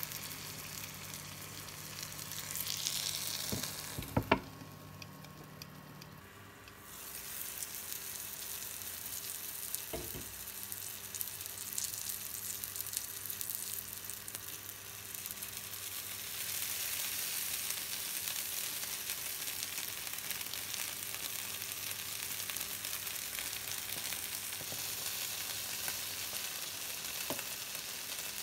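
Cabbage wedges sizzling in oil in a frying pan. A sharp knock comes about four seconds in, the sizzle drops away for a few seconds, then returns and grows louder in the second half, when tomato sauce has gone into the hot pan.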